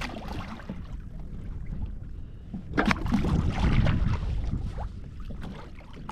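Wind buffeting the microphone aboard a fishing kayak, a steady low rumble, with a sharp knock about three seconds in followed by a couple of seconds of clattering handling noise.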